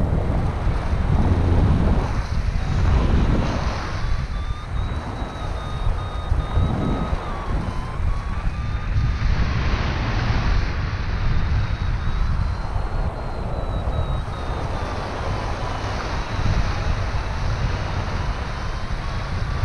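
Rushing wind on the microphone in paragliding flight, with a variometer's thin beeping tone underneath. The tone's pitch wanders slowly up and down as the climb rate changes.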